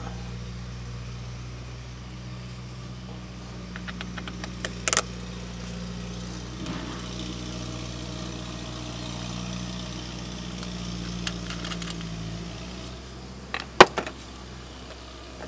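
Wrench clinking on a battery terminal clamp as the cable is tightened: a few light metal clicks about five seconds in and a sharp clank near the end, over a steady low engine-like hum.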